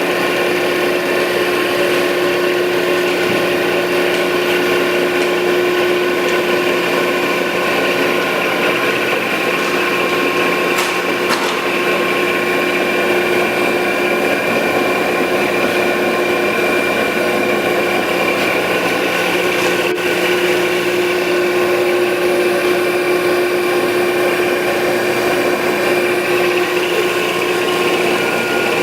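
Landis 1R universal cylindrical grinder running under power: a steady machine hum with several constant tones, and a couple of faint clicks.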